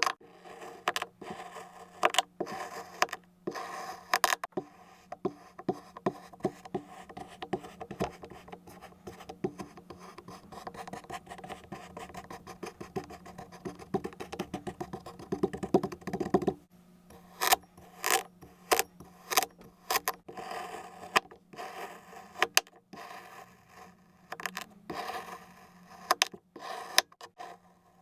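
Blade cutting and scraping through kinetic sand: a run of sharp clicks and scraping strokes, denser and more continuous in the middle before stopping abruptly, then more spaced-out cuts.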